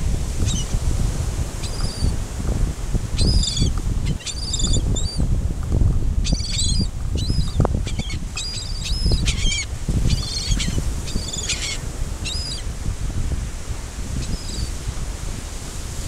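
Gulls calling again and again in short high squawks as they gather to be fed, several at once in the middle, over a steady rumble of wind on the microphone and surf.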